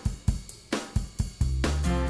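Background music: a steady drum beat with hi-hat and snare, joined by bass and sustained chords near the end.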